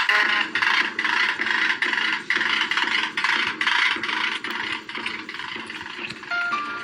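A rattling, scraping clatter that starts suddenly and goes on as a run of quick, uneven strokes, with a few low notes beneath.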